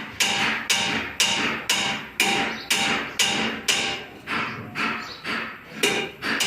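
A hammer striking copper at a steady rhythm, about two blows a second, each blow leaving a short metallic ring.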